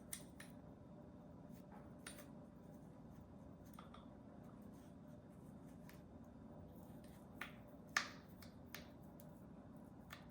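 Faint, scattered clicks and taps from tweezers handling a hollow rubberized Roomba brush while foam pieces are pushed into place inside it, about half a dozen in all, the loudest a sharp click about eight seconds in, over a low steady room hum.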